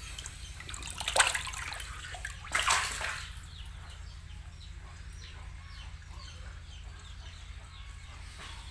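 Water splashing and sloshing in a shallow concrete tank of snakehead fingerlings. Two sharper splashes come about a second and nearly three seconds in, then fainter water noise over a steady low hum.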